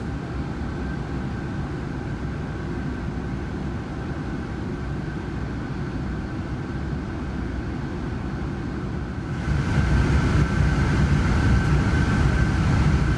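Steady rumble and whine of a Boeing 747-400 heard from inside the economy cabin, with a thin steady high tone. About nine seconds in, the noise suddenly grows louder and brighter and stays there.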